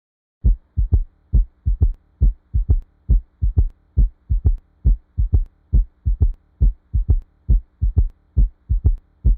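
Recorded heart sounds, about 70 cycles a minute, each cycle three low thumps, a single one followed by a close pair, a gallop-like three-sound rhythm. A faint steady hum runs beneath the beats.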